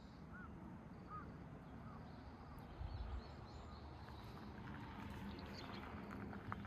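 Faint outdoor ambience: a small bird chirping short, repeated notes over a low steady rumble, with one dull low thump about halfway through.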